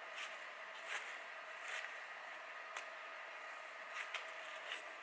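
Sharpened scissors snipping into a hanging strip of paper, testing the edge: about six or seven short snips roughly a second apart, two in quick succession about four seconds in.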